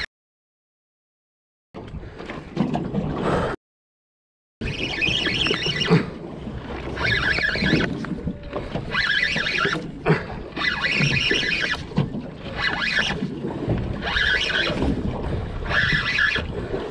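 Spinning reel being cranked in short spurts about every second and a half, pump-and-wind style, winding line in against a hooked fish, over wind and water noise. The sound cuts out to silence twice in the first few seconds.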